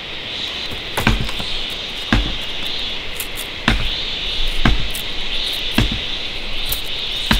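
A knife chopping and splitting bamboo strips: five sharp knocks, roughly a second apart, the first doubled.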